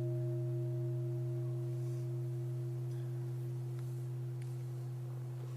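A Buddhist bowl bell ringing out after being struck: a low hum with two higher tones above it, all slowly fading, the highest tone dying away about halfway through.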